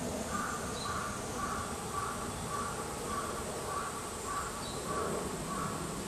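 A bird calling over and over in a regular run of short notes, about two a second, over a steady outdoor hiss.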